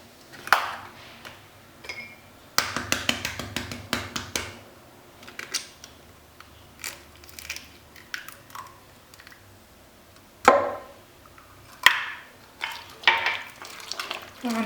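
Eggs cracked against a bowl and dropped into creamed butter and sugar: sharp knocks and clicks of shell and bowl, with a quick run of clatter about three seconds in.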